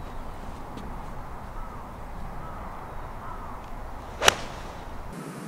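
A 6-iron striking a golf ball off the tee: one sharp crack about four seconds in.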